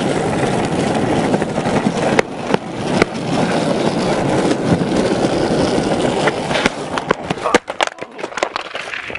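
Skateboard wheels rolling on asphalt with a steady rumble and a few sharp clicks. About seven seconds in, the rumble breaks off into a series of knocks and clatters as the rider falls and the board skids away on the road.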